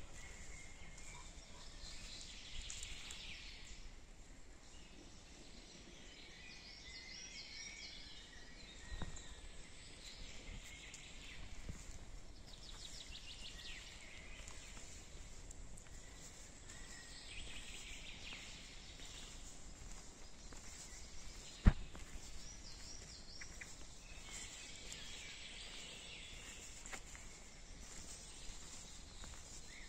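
Forest songbirds chirping and trilling in short phrases at intervals over a faint steady hiss. A single sharp click about two-thirds of the way through is the loudest sound, with a softer knock earlier.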